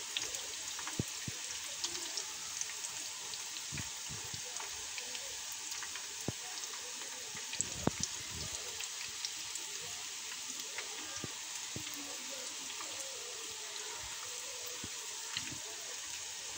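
Breaded chicken lollipops deep-frying in hot oil over a low flame: a steady sizzle with many small scattered pops and crackles.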